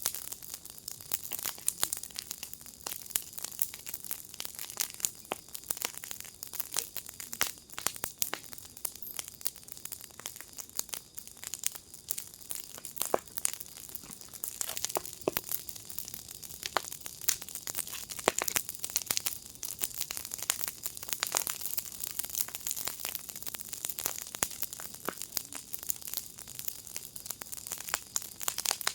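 Wood fire burning in a firepit, crackling with dense, irregular pops and snaps over a steady high hiss.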